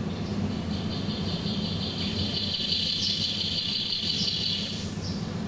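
A high, rapidly pulsing animal trill that starts just after the beginning and cuts off about five seconds in, over a steady low hum.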